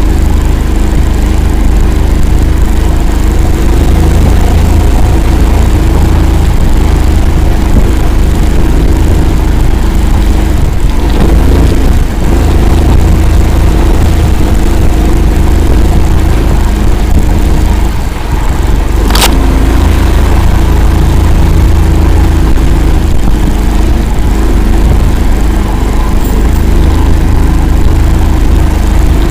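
Engine of the Akula swamp-going all-terrain vehicle, running loud and unbroken as it drives, with one sharp knock about nineteen seconds in.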